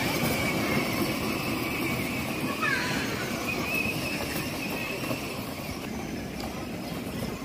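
Battery-powered ride-on toy jeep rolling over brick paving, a steady rumble of its plastic wheels and small electric motor that slowly grows fainter as it moves away.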